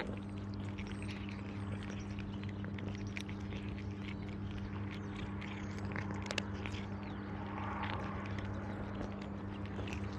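Cats crunching dry kibble, a scatter of small irregular crunches and clicks, over a steady low hum.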